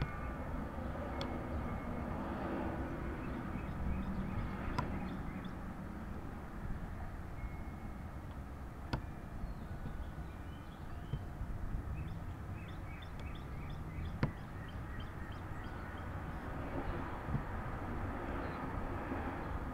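Steady low rumble of wind on the microphone, with a few faint sharp clicks from the pick and tension wrench working a Master Lock ProSeries 6127 padlock.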